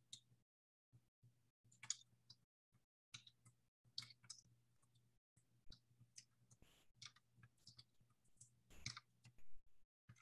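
Faint, irregular clicks of a computer mouse and keyboard over a faint low hum that cuts in and out.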